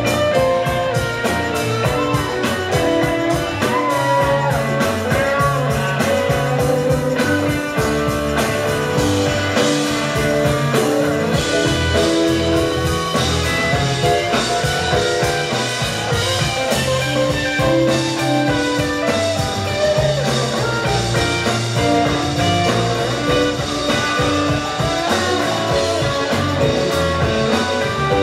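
Live rock band playing an instrumental jam: electric guitar, electric bass, keyboards, drum kit and congas with a steady beat, recorded from within the audience.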